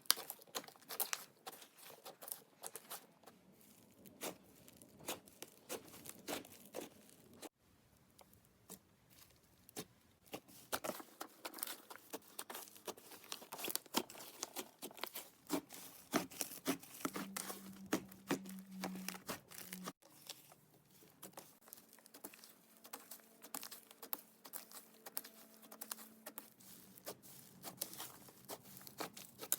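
Clay slime being kneaded, stretched and squished by hand, giving dense, irregular sticky crackles and little pops. The sound breaks off briefly twice.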